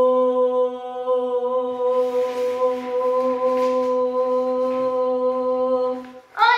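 A woman's voice holding one long, steady sung note for about six seconds. It breaks off near the end into a quick rising glide.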